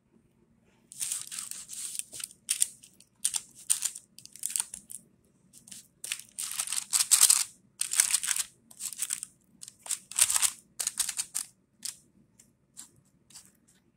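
Fluted paper pan liner crinkling and rustling in short, irregular bursts as brownie batter is pushed and spread against it in a metal baking pan.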